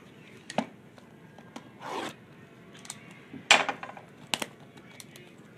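A cardboard trading-card box being handled on a table: several short scrapes and rubs as it is slid and turned over, one longer swish about two seconds in and the loudest scrape about three and a half seconds in, with faint ticks between.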